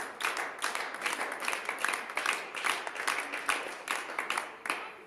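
Spectators clapping together in a steady rhythm, about four claps a second, fading out at the end.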